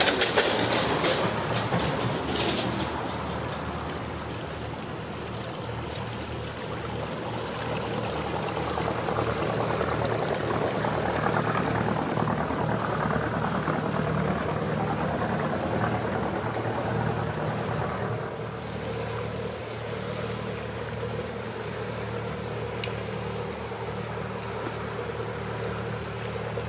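Inboard engine of a motor cruiser running slowly as it comes under a low bridge: a steady low hum whose note shifts about two-thirds of the way through.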